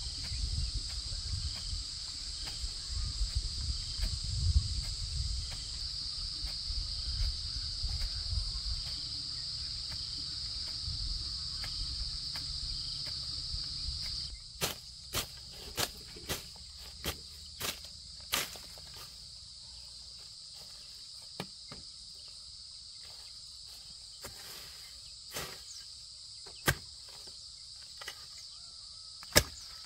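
Steady high insect buzzing throughout. A low rumble fills the first half, and from the middle on come sharp knocks: a quick row of about six, then scattered single ones.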